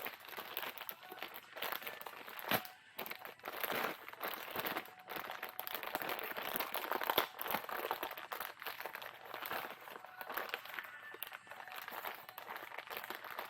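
Plastic packaging crinkling and crackling as it is handled, in a dense, irregular run of small crackles.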